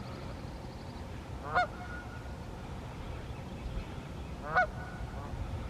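A goose honking twice, two short loud calls about three seconds apart.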